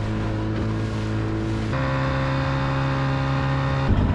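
Aluminium boat's outboard motor running at speed: a steady drone over water rushing along the hull. About halfway through, the drone steps up to a higher pitch. Near the end it gives way to a rougher rumble.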